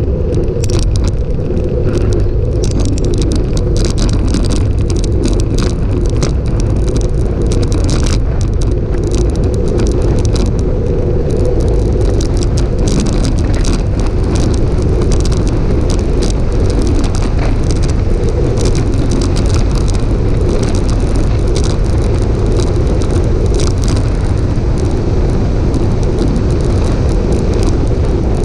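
Wind rushing over the microphone of a handlebar-mounted camera on a road bike riding at speed, with the tyres hissing on coarse asphalt. Frequent small rattles and clicks from the bike and mount jolting over the rough surface.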